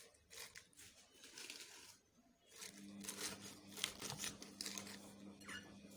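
Crisp lettuce leaves rustling and crinkling as they are torn and pushed into a blender jar. A faint steady hum starts a little before halfway.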